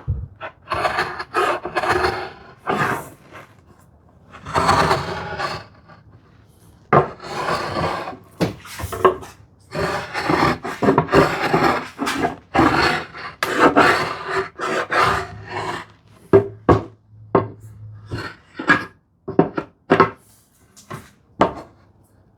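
A hand tool drawn along ash wood in repeated rasping strokes, a dozen or so, some short and some lasting a second or two, with brief pauses between them.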